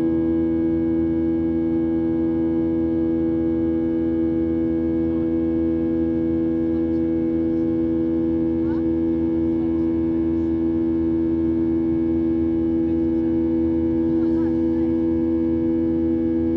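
Boeing 737-800's CFM56-7B turbofan engines droning steadily, heard inside the cabin: a low rumble under strong, unchanging hum tones.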